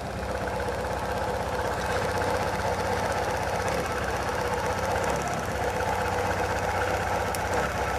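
Chevrolet four-cylinder MPFI engine idling with a rapid, even ticking: ignition current leaking from a worn spark plug wire, the spark jumping from the wire to the cylinder head, which makes the engine shake and run unevenly.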